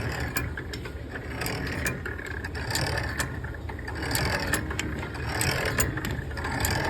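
A hand-turned antique drill press running: its gears rattle and its feed pawl clicks over the gear teeth, the sound swelling and fading about once every second and a bit as the handle goes round.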